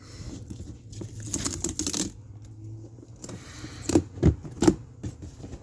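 Fireworks being handled in a cardboard box: rustling and crinkling of packaging, then three sharp knocks close together as items bump against each other.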